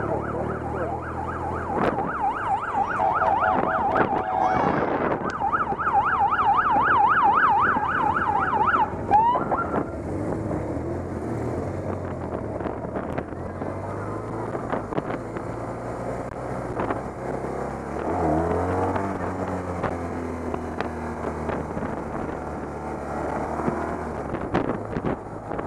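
Police motorcycle siren sounding in a fast yelp, sweeping up and down about three to four times a second, then cutting off about nine seconds in. After that, police motorcycle engines running, with a rise in revs later on.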